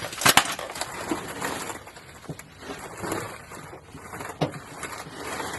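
Metal parts and tools being handled during work under a car: one sharp knock just after the start, two fainter knocks later on, and rustling handling noise between.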